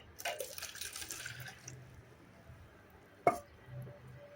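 Hot water being poured out and splashing for about a second and a half, then a single knock a little over three seconds in.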